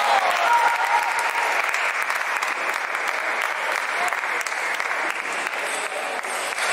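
Spectators clapping steadily after a table tennis point is won, with a few shouts of cheering at the start.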